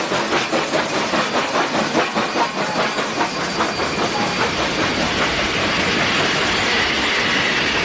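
Train running: fast rhythmic beats, about four a second, that blend into a steady rushing noise with a low rumble about halfway through.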